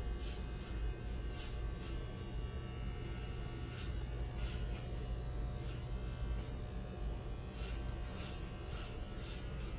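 Electric hair clippers buzzing steadily as they cut a customer's hair, with short crisp strokes recurring about every half-second as the blades pass through the hair.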